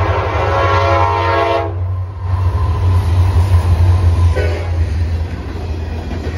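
Norfolk Southern freight train passing close by. The lead diesel locomotive's multi-note horn sounds a chord that cuts off about a second and a half in, then gives one short toot about four seconds in, over the steady deep rumble of its engine. Container cars then roll past.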